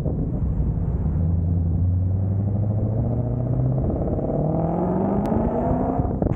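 Car engine and exhaust pulling away under acceleration, heard close up from the rear of the car. The note holds steady at first, changes about four seconds in, then climbs steadily in pitch.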